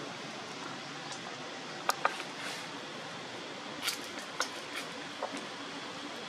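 Steady outdoor background hiss broken by a few short, sharp clicks: two close together about two seconds in and two more around four seconds.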